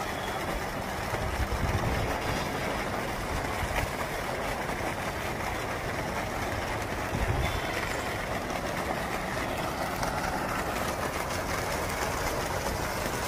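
Floating-tap fountain pouring a thick, continuous column of water, a steady rushing splash, with a few low rumbles now and then.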